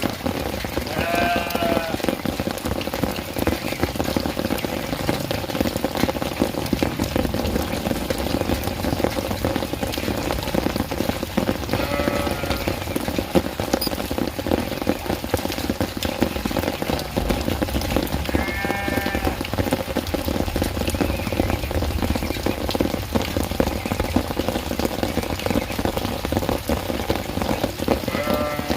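Steady rain falling, with a goat bleating now and then, four short calls spread through it.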